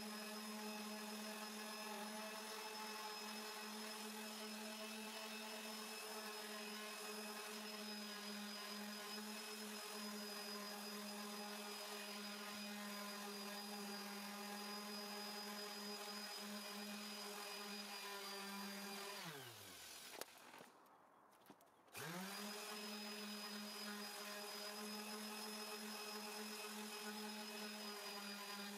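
Electric polisher with an orange foam pad running at a steady pitch while buffing epoxy resin with polishing paste. About two-thirds of the way through it is switched off and winds down with a falling pitch. After about two seconds without it, it is started again and spins quickly back up to speed.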